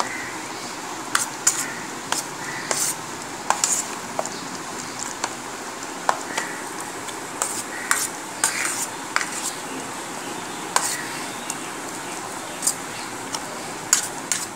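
Hand mixing a moist spice paste of ground poppy seed, coconut and mustard in a stainless steel plate: irregular clicks and scrapes of fingers against the metal over a steady hiss.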